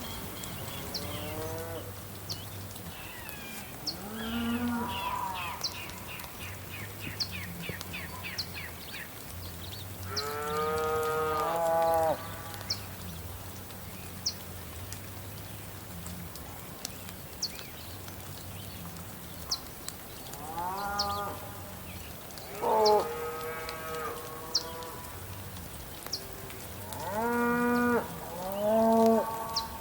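Cows mooing over steady rain, about half a dozen calls. The loudest come about ten seconds in and in a close pair near the end. Short high bird chirps are scattered throughout.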